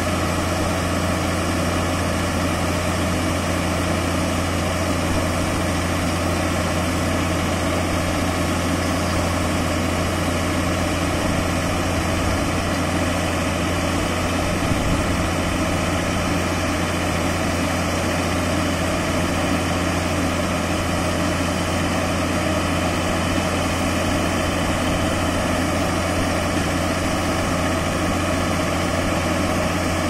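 Diesel engine of a truck-mounted Putzmeister concrete boom pump running steadily with a low, even drone, powering the hydraulics as the boom unfolds.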